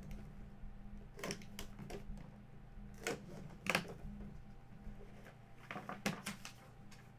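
A stiff cardboard collectible box being handled and opened: scattered taps, scrapes and rustles as the seal is broken and the lid slides off, over a steady low hum.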